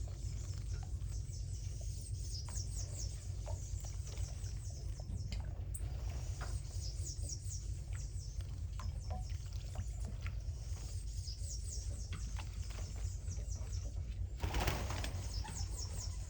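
Bananaquits singing: runs of thin, high, rapid trilled notes, repeated every second or two, over a steady low rumble. A short burst of flapping wings comes near the end.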